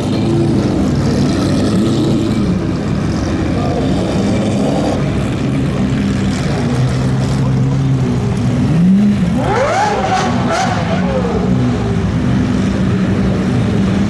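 Supercar engines running at low speed as the cars pull out, with a Lamborghini Murciélago's V12 passing close. About nine seconds in, an engine revs up sharply and drops back.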